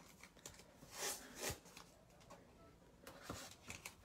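Faint handling of masking tape on a canvas: a short rasp about a second in, like tape being pulled off the roll, and a few brief scrapes near the end as strips are pressed down.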